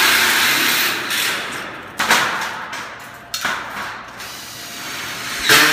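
Cordless drill driving screws into light-gauge steel studs, in four loud bursts that each start suddenly and fade over about a second.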